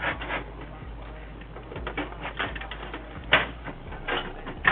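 Irregular clicks and light knocks of hands handling a plastic PC case fan and case parts, with a sharper knock about two-thirds of the way in.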